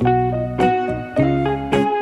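Background music: a plucked guitar picking out a melody, with a new note about every half second.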